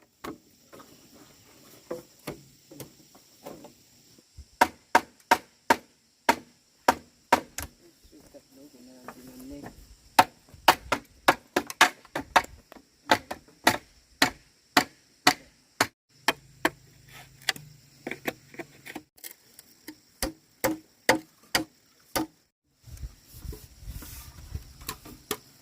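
A tool striking wood with repeated sharp blows, in runs of about two a second with short pauses between them.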